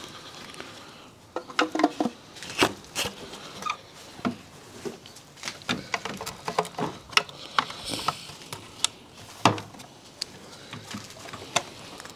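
Irregular sharp clicks, taps and knocks of hands handling and fitting small car parts, starting about a second in and coming in quick clusters.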